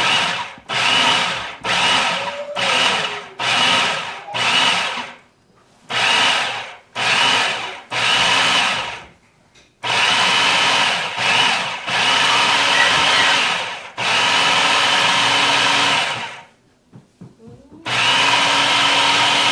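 Food processor pulsed in quick short bursts, about two a second, then run in longer stretches of a couple of seconds each, chopping and blending fish fillets with breadcrumbs into a fish-cake mixture.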